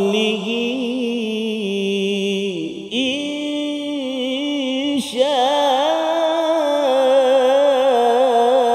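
A man reciting the Quran in the drawn-out melodic style of tilawah, holding long, ornamented notes on 'min fadlihi, in…'. He breaks off briefly twice, about 3 and 5 seconds in.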